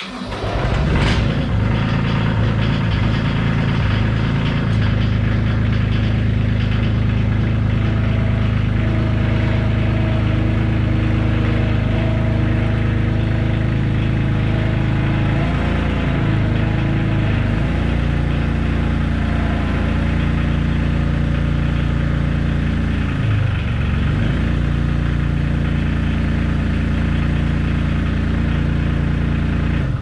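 Small skid steer's engine starting and running steadily. Its note dips briefly around the middle and again about two-thirds of the way through, and the engine shuts off at the end.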